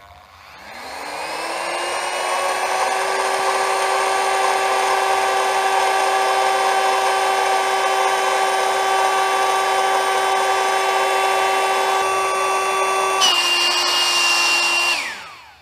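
Naturehike NH18Q001-A battery air pump's motor spinning up to a steady high whine as it blows air into an inflatable sleeping mat. About 13 seconds in, with the mat full, the pitch drops a little and a higher whistle joins in, then the motor winds down and stops.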